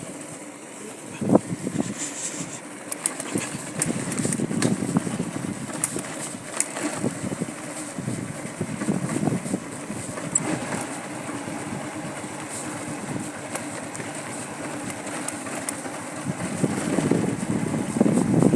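An engine running steadily, with uneven rumbling and scattered clicks, growing louder near the end.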